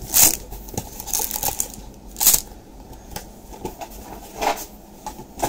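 Trading cards and their foil packs being handled: three brief papery swishes, about two seconds apart.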